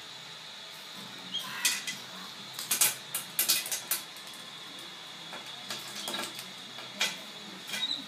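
Irregular sharp knocks and clinks on a ceramic washbasin as a baby capuchin monkey clambers about in it, coming in short clusters with quieter gaps between.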